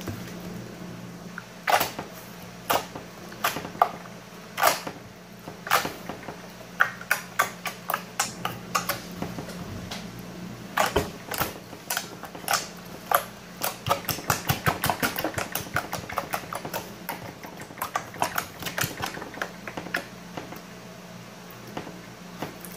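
Beaded pink slime being pressed and poked with fingertips, giving off many irregular sharp clicks and pops, crowding most thickly about halfway through. A steady low hum runs underneath.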